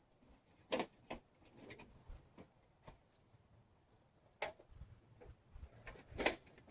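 A few faint, scattered clicks and knocks from light handling of the stove parts.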